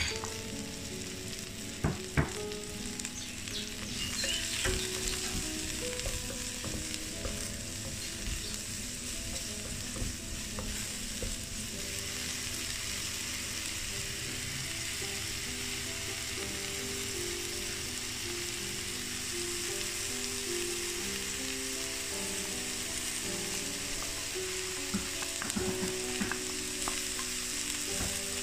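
Chopped mushrooms and broccoli sizzling steadily in a hot frying pan, with a couple of sharp utensil knocks about two seconds in.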